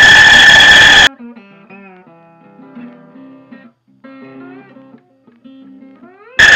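A DeWalt 3501 bandsaw cutting a block of sapele gives a loud, steady high-pitched squeal that cuts off suddenly about a second in. Quiet plucked acoustic guitar music with sliding notes follows, and the bandsaw squeal returns abruptly near the end.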